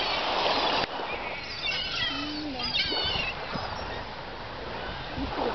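Gulls calling over the sea: a cluster of short, wavering high cries between about one and a half and three and a half seconds in, over a steady hiss of wind and lapping water.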